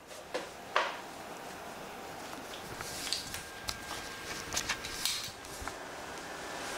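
Room tone: a steady hiss with scattered light clicks and knocks, and a faint thin high tone that comes in about two and a half seconds in.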